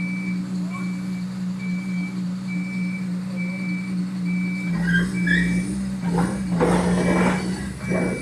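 Heavy drilling rig's engine running steadily while its motion warning alarm beeps about once every three-quarters of a second. About five seconds in a deeper rumble joins, and several loud bursts of hissing, clattering noise follow near the end.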